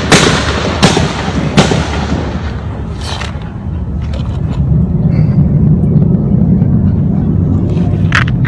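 Gunfire: three loud gunshots about three-quarters of a second apart in the first two seconds, each echoing, then a fainter shot around three seconds in and another sharp crack near the end. A low steady rumble builds underneath from about four seconds in.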